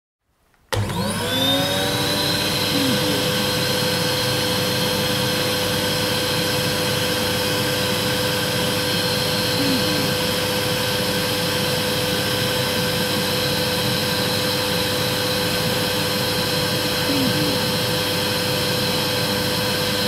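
Old vacuum cleaner switched on about a second in, its motor spinning up quickly and then running steadily with a high whine over a rushing air noise. The pitch dips slightly for a moment a few times.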